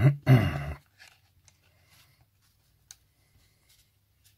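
A brief spoken phrase at the start, then a quiet stretch with a few faint clicks and taps of groove-joint pliers handled against a paper-wrapped plastic toothbrush casing. One sharper click comes about three seconds in.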